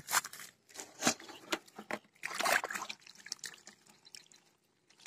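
Irregular splashes and drips of water at a wire-mesh keepnet sitting in a shallow ditch, with caught climbing perch inside it.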